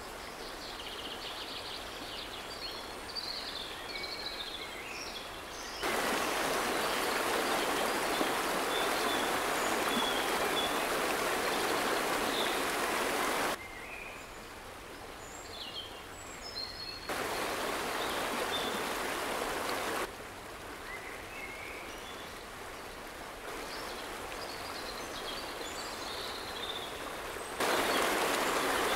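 River water rushing over rapids in three stretches that start and stop abruptly, alternating with quieter stretches of small birds chirping over a faint steady background.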